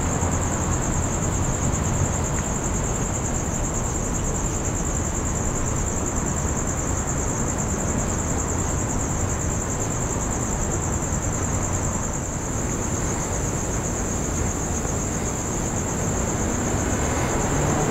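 A steady high-pitched drone of night insects, such as crickets, over a constant low background rumble.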